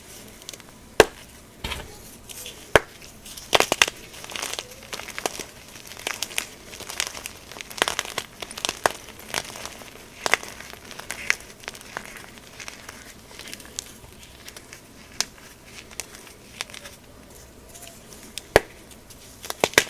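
Gym chalk being crushed: irregular crisp snaps and crumbly crackling, busiest in the first half and thinning to occasional single snaps toward the end.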